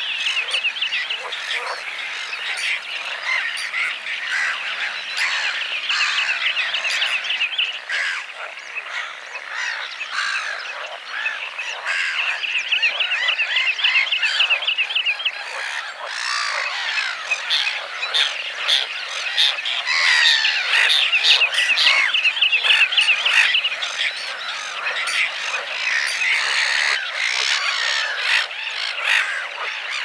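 Dense wetland chorus of croaking frogs mixed with bird chirps and calls, many voices overlapping throughout, with recurring runs of rapid trilled notes.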